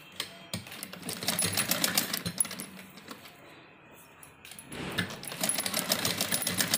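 Domestic sewing machine stitching through fabric in two runs of rapid clicking, with a pause of about two seconds between them.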